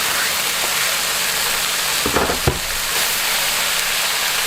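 Chicken and freshly added vegetables sizzling in hot oil in a pan during a stir-fry. About two seconds in there is a short clatter of knocks, the loudest a single sharp knock.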